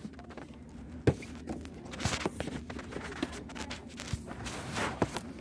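Handling noise from a handheld phone being moved about: irregular knocks and rustling against the microphone, over a low steady background hum.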